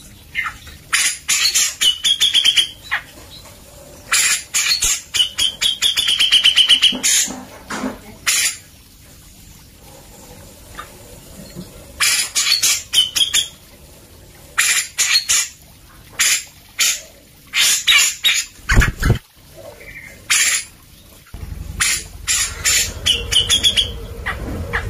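Grey-cheeked bulbul (cucak jenggot) calling in repeated bouts of rapid chattering notes, several ending in a short wavering high whistle, with pauses of a second or more between bouts. A brief low thud comes about three-quarters of the way through.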